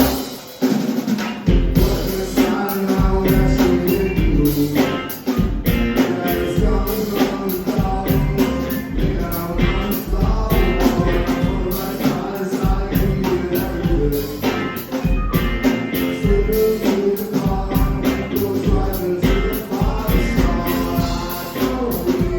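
Live rock band playing with drums and a singing voice, the low end dropping out briefly about a second in before the full band comes back.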